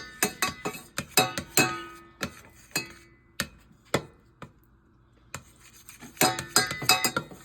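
A utensil clinking and tapping against dishes and cookware, with rapid runs of ringing clinks in the first two seconds and again near the end, and only a few scattered clinks in between.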